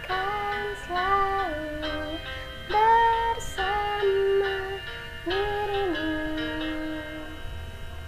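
Music from an Indonesian pop love song between sung lines: a wordless melody of held notes in short phrases, rising and falling over a quiet backing.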